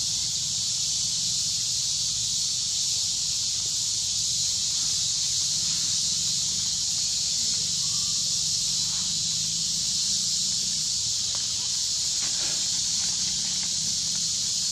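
Steady high-pitched drone of forest insects, unbroken throughout, with a few faint short squeaks about halfway through and again later.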